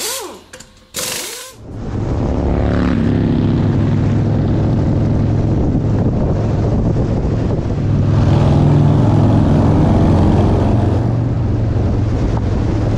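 Motorcycle engines running with a steady low drone, a little louder from about eight seconds in until near the end. It follows a second or so of brief choppy sounds.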